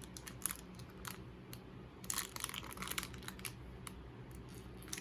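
Small plastic toy packaging being handled, giving soft irregular crinkles and light ticks.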